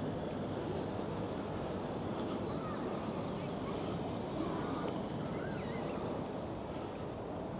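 Steady outdoor background noise with a few faint, short bird calls scattered through it.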